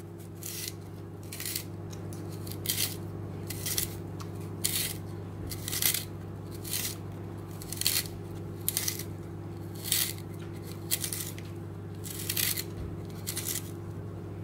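A carrot being twisted through a handheld spiralizer: short cutting strokes about once a second as the blade shaves off a spiral strip, over the steady hum of a microwave oven running.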